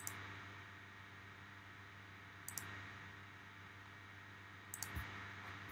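A few faint computer mouse clicks, in small groups near the start, about two and a half seconds in and near the end, over a low steady room hum.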